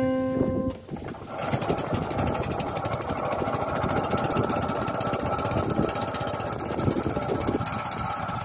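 A wooden passenger boat's engine running steadily with a fast, even chugging, beginning about a second in as a few plucked guitar notes die away.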